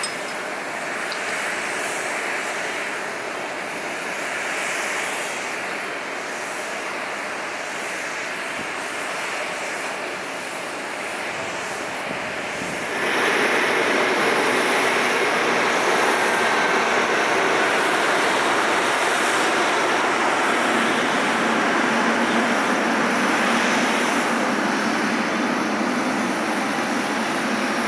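Jet airliner engine noise, a steady rush from a twin-jet climbing away. About 13 seconds in it cuts to a louder, fuller rush from a British Airways Boeing 787-9 Dreamliner's Rolls-Royce Trent 1000 turbofans at take-off power as it lifts off and climbs.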